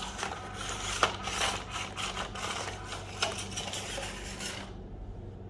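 WPL C24 1:16 four-wheel-drive RC crawler truck running on its electric motor and plastic drivetrain and ramming a pile of plastic action figures, which clatter. Two sharp knocks stand out, about a second in and about three seconds in, and the running fades out near the end.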